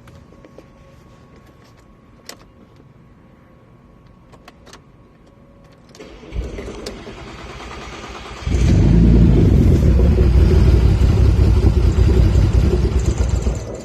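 Audi A4 B7 3.2 V6 being started: a couple of seconds of cranking, then the engine catches and runs loudly for about five seconds before the sound cuts off suddenly. The car has a rough start and rough idle problem.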